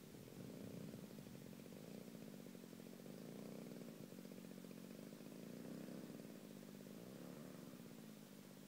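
DLE 30 single-cylinder two-stroke petrol engine of an RC model Corsair running at low throttle while the plane taxis on grass. Its loudness rises and falls slightly with small throttle changes.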